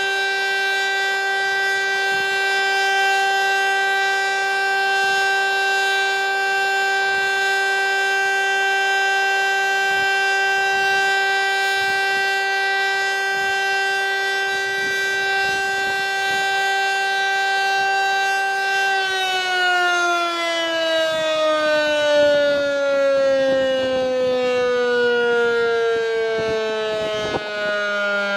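VEM DS977 mechanical civil defense siren sounding a loud steady tone for the siren-test signal. About two-thirds of the way through it is switched off and its pitch falls steadily as the rotor winds down.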